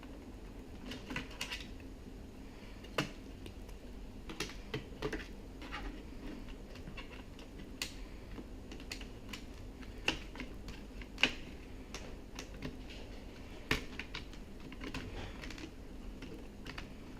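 Irregular light clicks and taps of hands handling the small plastic and metal parts of a Pioneer CDJ-900nxs during repair, with the sharpest click about eleven seconds in.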